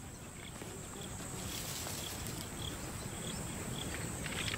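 Insects trilling steadily in the bush, with short high chirps repeating about every half second over a low, even background rumble.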